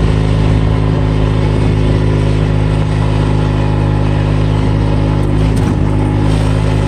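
Kubota's engine running at a steady speed while driving along a dirt track, with tyre and wind noise over it.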